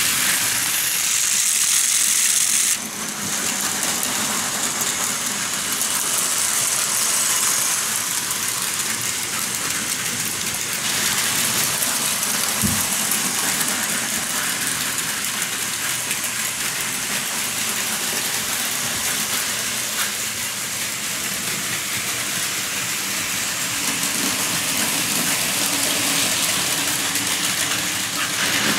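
Plarail Advance toy trains running on plastic track: a steady whirring of their small battery motors and gears, with the wheels rattling along the track. The sound changes abruptly about three seconds in and again about eleven seconds in.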